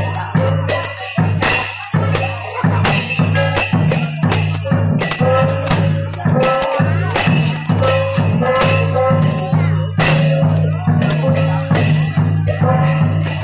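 Red Dao cấp sắc ritual dance music: drums, small hand cymbals and jingling bells beat out a continuous rhythm, with a short pitched phrase repeated over it.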